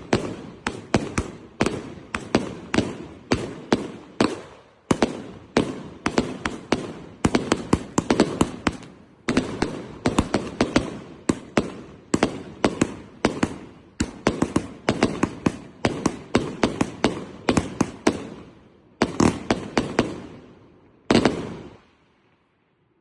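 Klasek Super white strobe firework sputtering out a dense, irregular stream of sharp popping strobe bursts in quick clusters. A last cluster comes about two seconds before the end, then it stops.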